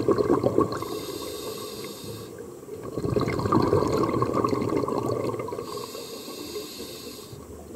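Scuba diver breathing through a regulator underwater: bubbling exhales alternate with the hiss of the demand valve on each inhale, a first inhale about a second in and a second near the end.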